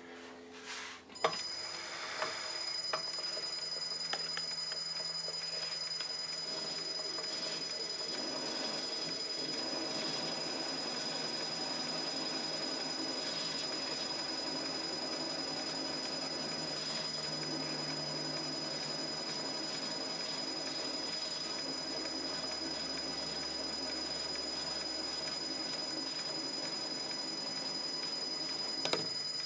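Metal lathe motor starting with a click about a second in, then running steadily with a constant high whine while a parting tool cuts into a high-tensile steel bar to part off a miniature engine valve. A sharp click near the end.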